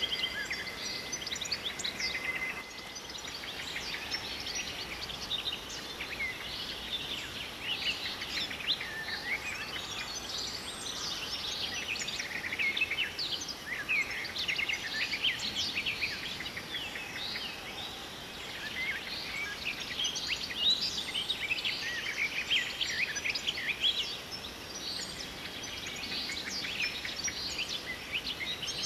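Many small birds chirping and singing together, with dense, overlapping short calls over a steady hiss. A held note of the pan-flute music stops about three seconds in.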